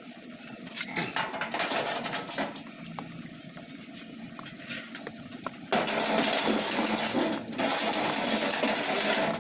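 Hammer rapidly tapping on galvanized sheet-metal flooring, a dense metallic clatter that starts a little over halfway through, breaks off briefly and resumes; a few scattered lighter knocks come before it.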